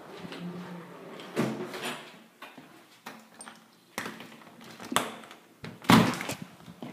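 An interior door being handled and opened, with several clicks and knocks; the loudest knock comes about six seconds in.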